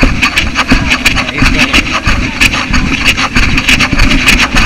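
Footsteps and jostling knocks on a moving body-worn camera's microphone, with rumble and rustle from wind and handling as its wearer hurries along a cobbled street.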